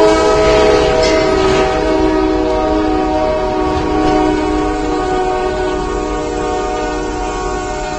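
Freight locomotive's air horn blowing one long, steady chord as the train hits a flatbed tractor-trailer on a grade crossing, with rough crashing and scraping noise about a second in and again near four seconds. The sound slowly fades toward the end.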